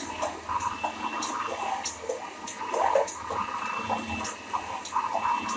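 Electric blender running, churning eggs, garlic and oil into thickening mayonnaise, with an uneven sloshing churn.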